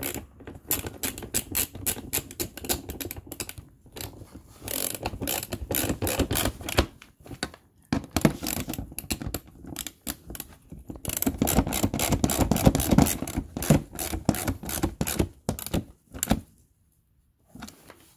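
Ratchet wrench clicking in rapid runs, driving the 10 mm bolts that fasten a fog light into a plastic front bumper, with short pauses between runs and a brief quiet spell near the end.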